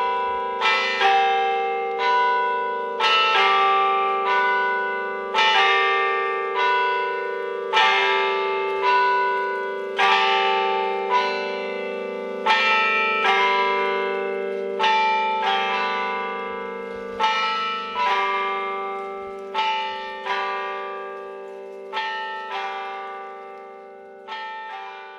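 Church bells ringing a slow, uneven sequence of strikes, about one a second, each note ringing on over a steady low hum from the bells. The ringing gradually gets quieter toward the end.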